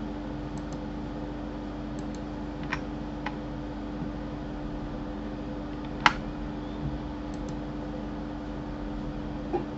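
A few sharp clicks of a computer mouse and keyboard over a steady low hum; the loudest click comes about six seconds in.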